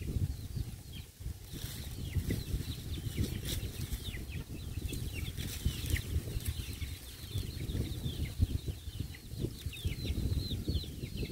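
Birds chirping: many short, high chirps, each falling in pitch, one after another throughout. Under them, a low, uneven rush of wind on the microphone.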